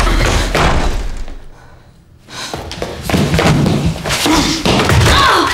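Physical scuffle: bodies thudding and knocking against each other and the room as people grapple, loud at first, dropping off briefly about a second and a half in, then picking up again.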